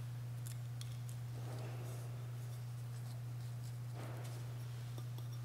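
A steady low hum with faint rustles and small clicks of handling at the altar, as a missal page is turned and the paten is handled.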